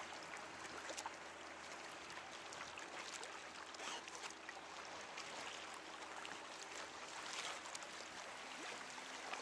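Water trickling and lapping along the hull of a paddled kayak, with scattered small splashes and drips from the paddle blade.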